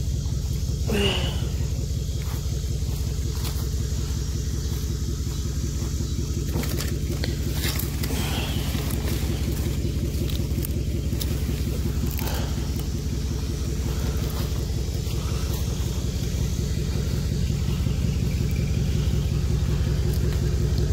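Pickup truck engine idling steadily, with a few light clicks and crackles from dry palm fronds being handled.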